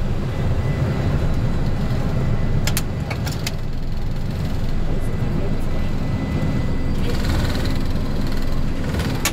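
Flight deck noise of a Boeing 747-400 taking off, rotating and climbing out: a steady low rumble from the engines at takeoff power. A few sharp clicks come about three seconds in.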